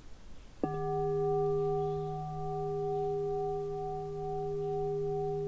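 Crystal alchemy singing bowl struck once with its mallet about half a second in, then ringing on as a steady low tone with several higher overtones above it, the sound gently swelling and easing.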